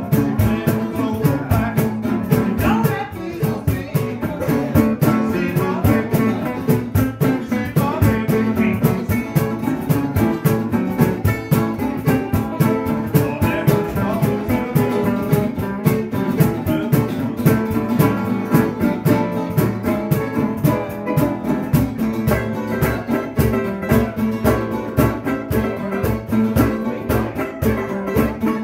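Live acoustic band playing: a metal-bodied resonator guitar and other plucked string instruments, with a cajón keeping a steady beat.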